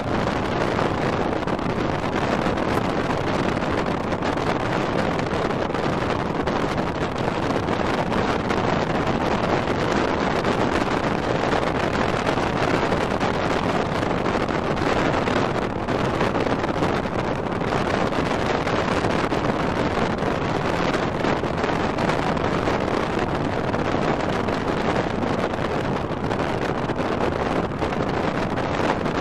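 Strong thunderstorm outflow wind rushing over the microphone: a loud, steady noise with small gusty swells, mixed with the running noise of the chase vehicle.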